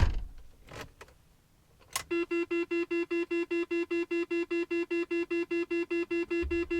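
Intro music: a single bright keyboard note pulsing evenly about four times a second, with a low bass coming in near the end. It is preceded by a couple of sharp clicks.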